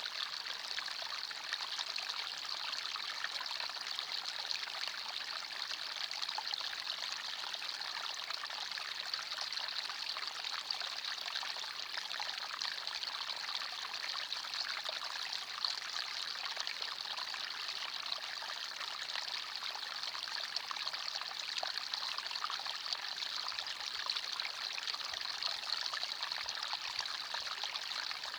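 Small forest stream running over stones: a steady babbling and trickling of water, with much of the sound high and splashy.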